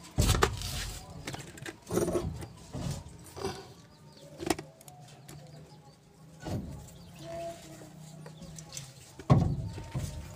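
Metal knocks and scraping as a Colt Diesel truck's rebuilt differential carrier is worked by hand into the rear axle housing. There is a sharp knock just after the start and another near the end, with lighter clinks and handling noise between.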